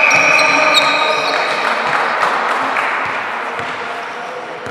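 Basketball game sounds in a gym: high sneaker squeaks on the court and a ball bouncing, over the noise of the hall, fading slightly towards the end.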